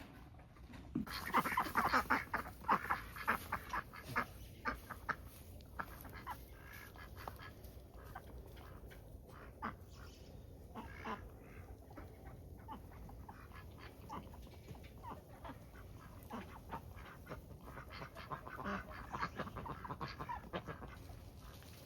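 A flock of domestic waterfowl calling in quick repeated bursts, busiest in the first few seconds and again near the end.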